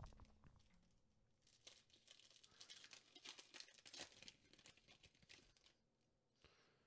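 Foil wrapper of an NBA Hoops trading-card pack being torn open, a faint crackling, crinkling rustle that starts about a second and a half in and lasts about four seconds.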